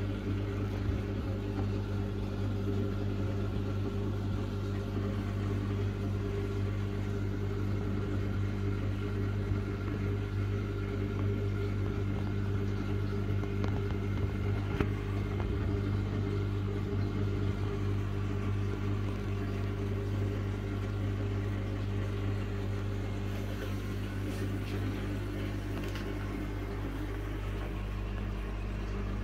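Steady electrical hum of a running aquarium water pump, with a soft wash of circulating water underneath.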